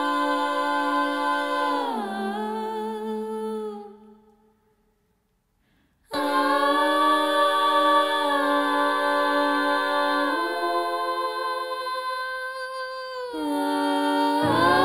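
A woman's voice humming long held notes a cappella, with no words: the opening of a song. About two seconds in the notes slide down, then fade to silence for about two seconds before new held notes come in.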